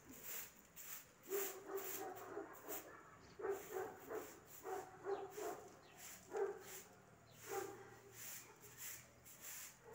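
Short straw hand broom swishing over a concrete floor in quick repeated strokes, while a dog gives short barks and whimpers about once a second, the loudest sound.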